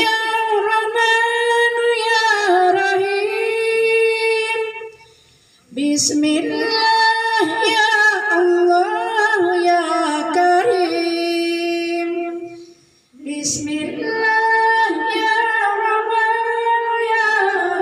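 A group of women singing an Islamic devotional chant (sholawat) in unison, unaccompanied, in three long held phrases with short breaks between them, about five and thirteen seconds in.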